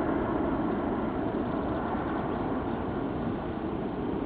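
Four-engine Airbus A380 airliner flying away low overhead, its jet engines giving a steady, even rushing noise that eases slightly near the end.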